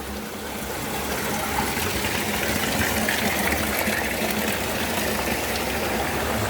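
Steady rushing of flowing water, swelling slightly over the first couple of seconds and then holding even.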